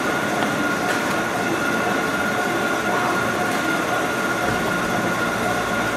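Steady machine noise, a constant hiss with a thin high whine held on one pitch throughout.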